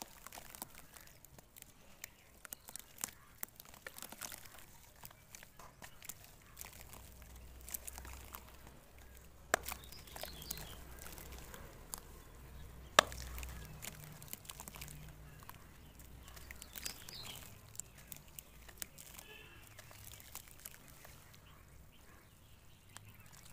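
Chunks of dry dirt crumbling and snapping between the fingers and dropping into a basin of muddy water, with irregular crunches, crackles and small splashes. A sharp snap about 13 seconds in is the loudest.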